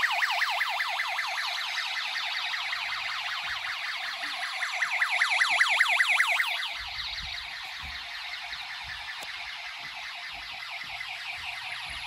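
Snap Circuits alarm IC sounding a continuous siren-like tone through its speaker, a rapid warble sweeping up and down many times a second without a break. It is loudest around five to six seconds in, then quieter, with a few low thumps in the second half.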